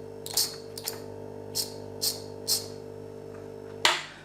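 Johnson DC motor from a Renault Scenic electric parking brake, powered up and humming at one steady pitch without spinning up, with several sharp clicks, then cut off suddenly with a loud click near the end. The motor is stalling in this direction: it is failing.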